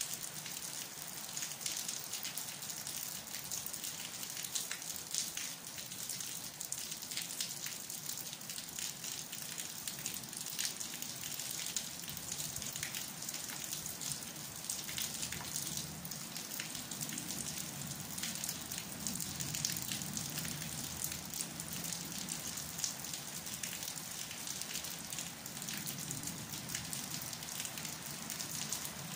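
Steady rainfall: an even hiss dotted with many individual drops ticking.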